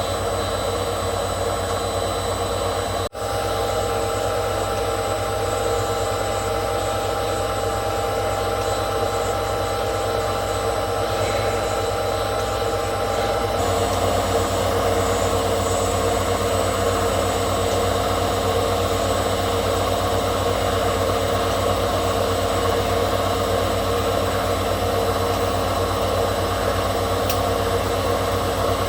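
Hotpoint 18680 washing machine on its spin cycle: the brushed motor and drum run with a steady whine and hum, smooth on newly fitted motor brushes. There is a brief dropout about three seconds in. About halfway through, the sound steps up louder and stays steady, as the spin changes speed.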